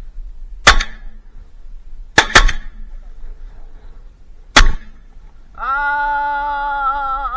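Shotgun shots at flying ducks: one, then a close pair about a second and a half later, then a fourth about two seconds after that. Near the end comes a long, steady held call, close to two seconds long.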